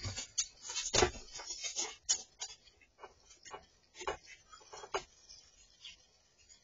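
A squirrel scrabbling about and handling its food: irregular sharp clicks and scratches, thick over the first two seconds, then scattered single clicks.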